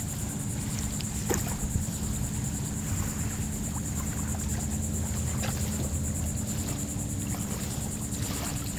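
Steady low motor hum with a constant high-pitched whine over it, and a few faint ticks.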